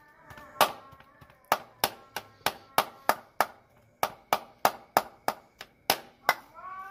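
A steel spoon knocking and scraping against a stainless-steel bowl while mixing a mash of chicken, rice and egg. The sharp metallic knocks come about three a second, in a steady stirring rhythm.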